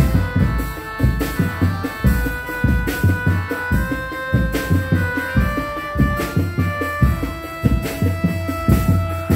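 Live drum-band music: a stack of large bass drums beaten in a fast, busy rhythm, with a melody of held notes playing above the drums.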